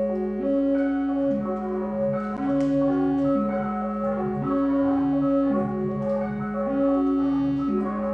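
Analog synthesizers playing an ambient improvisation: a sustained low tone steps back and forth between two notes, each held for about a second, under higher held notes.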